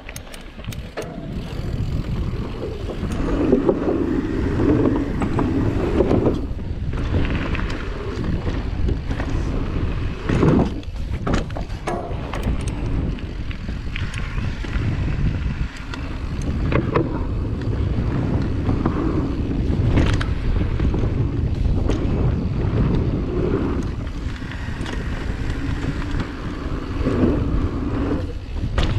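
Wind rushing over the action-camera microphone as a YT Capra Uncaged 9 mountain bike runs fast downhill, its tyres rolling over a dirt trail with the bike rattling and knocking over bumps. There is a sharp knock about ten seconds in, and the tyres roll onto wooden boardwalk planks near the end.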